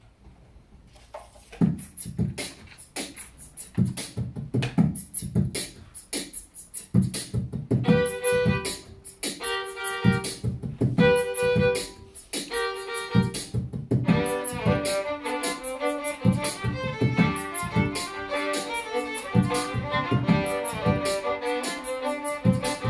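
A beatboxed drum rhythm repeating on a loop pedal, starting a second or two in. Two violins join over it, first with short held notes from about eight seconds in, then with a running Irish fiddle melody from about fourteen seconds.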